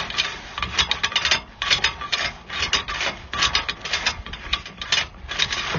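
Sewer inspection camera's push-cable reel turning as the cable is fed through the line, a fast, irregular clicking and rattling.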